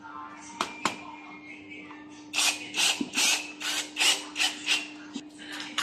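Hand tools working on the scooter's metal parts: two sharp clicks, then from a little over two seconds in a run of short, rasping strokes, about two to three a second, over a faint steady hum.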